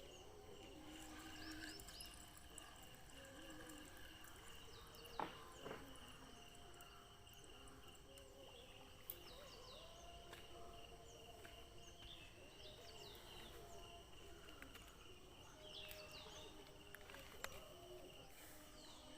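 Faint outdoor ambience: a steady high insect drone with scattered short falling bird chirps, and a few light clicks about five, nine and seventeen seconds in.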